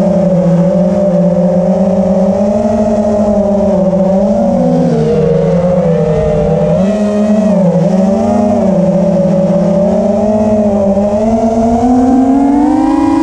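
5-inch FPV quadcopter's brushless motors (EMAX ECO II 2306, 1900 KV) and three-blade props whining, recorded on board; the pitch rises and falls with the throttle, dipping twice midway and climbing near the end.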